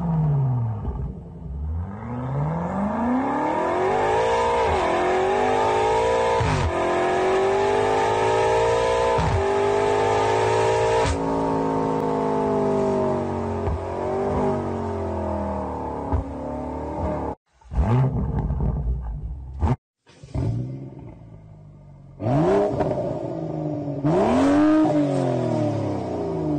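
BMW M5's V8 engine revving through an Akrapovič exhaust, the pitch climbing and falling with each rev. The sound drops out twice, briefly, about two-thirds of the way through. Near the end a BMW 1 Series hatchback with an Akrapovič exhaust revs.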